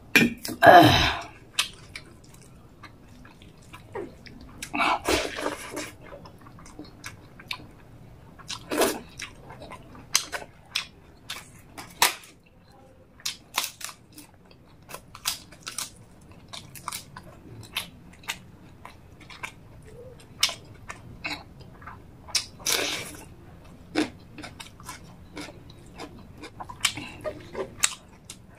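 Close-up eating sounds: a crisp papad crunched in several loud bites, with short smacking chews and mouth clicks in between.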